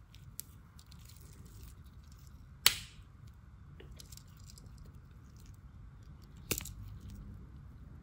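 Tools of a Victorinox 91 mm Swiss Army Knife snapping against their backsprings: a sharp click about two and a half seconds in as the wood saw folds shut, and a second, softer click about six and a half seconds in as the metal saw is opened. Faint handling noise from gloved fingers runs between the clicks.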